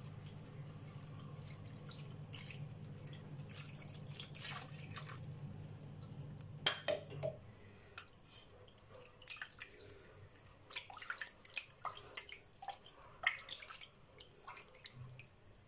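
Milk being poured into a nonstick saucepan of hot roux, then a silicone spatula stirring the béchamel with light scrapes and taps against the pan. A low steady hum runs under the first half and stops about seven seconds in.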